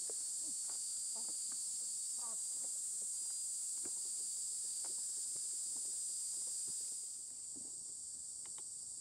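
Steady high-pitched chorus of crickets, its level dropping slightly about seven seconds in, with faint scattered short sounds beneath.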